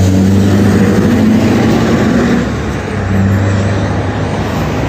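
Road traffic passing close by: motor vehicle engine and tyre noise, loud and steady, with a low engine hum that eases a little about two and a half seconds in.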